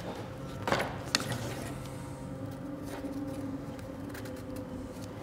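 Thin wooden frame pieces knocking and clicking as a glued rib is handled and slotted into the spines of a hollow-core surfboard frame kit: a knock about a second in, followed at once by a sharper click, then a few faint taps. A steady low hum runs underneath.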